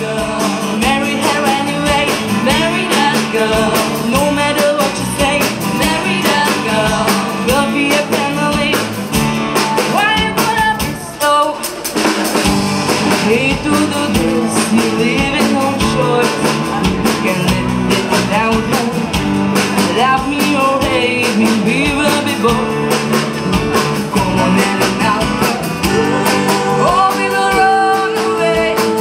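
A vocal band performing live through the stage PA: several singers over electric guitar, keyboard and drums, with a steady beat.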